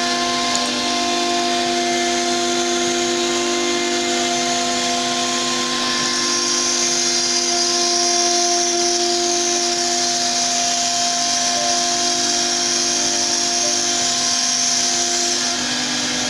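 CNC router spindle running steadily as it cuts wood, a constant multi-tone whine over a hiss that turns brighter from about six seconds in until near the end.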